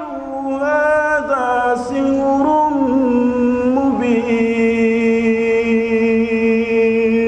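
A man reciting the Qur'an in melodic tilawah style through a microphone, drawing out each syllable over slowly stepping notes. He then holds one long steady note from about four seconds in until near the end.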